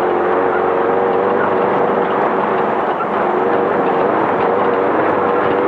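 Class 5/1600 VW bug's air-cooled 1600 cc flat-four running hard at racing speed, its note wavering slightly up and down over a steady rush of dirt-road and wind noise.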